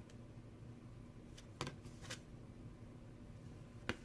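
A few short, soft clicks and taps from small product packaging being handled, over a faint steady low hum of room tone.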